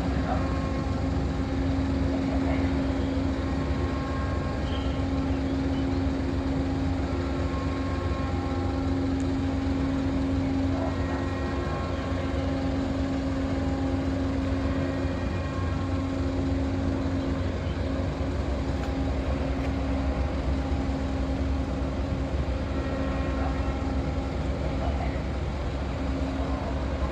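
Car ferry's engines and machinery running steadily during berthing: a low rumble under a constant hum.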